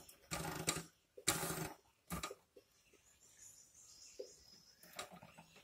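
Marker pen writing on a whiteboard: a few short scratchy strokes in the first two seconds or so, then fainter, lighter writing.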